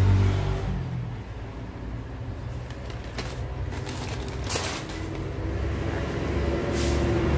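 A brown paper bag rustling and crinkling in a few short bursts as a cardboard product box is pulled out of it, over a low steady rumble.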